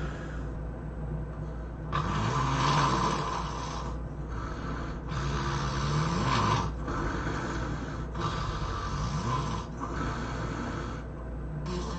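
A person snoring in their sleep: rasping snores with a buzzing pitch, one roughly every three seconds, with softer breaths in between.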